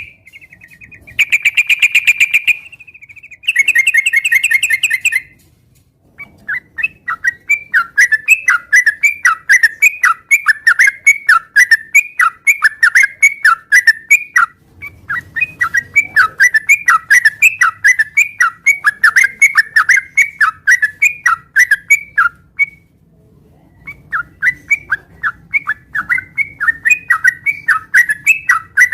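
Yellow-vented bulbul (trucukan) singing loudly and without letup, in fast runs of short chirping notes. It opens with two brief bursts of rapid buzzy trilling and pauses once for about a second late on.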